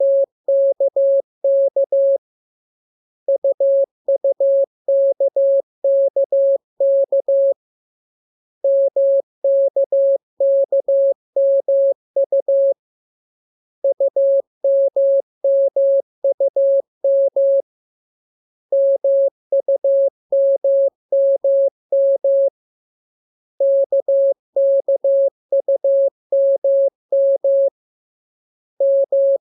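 Morse code practice tone: a single steady beep keyed in dots and dashes, sent in runs of about four seconds with a pause of about a second between each, as a radiogram of practice character groups for learning to copy by ear.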